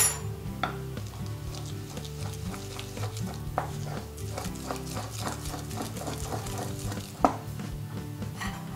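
Wooden pestle grinding paprika into a wet garlic, salt and oil paste in a wooden mortar: a run of mashing, scraping strokes about three a second, with one sharp knock about seven seconds in.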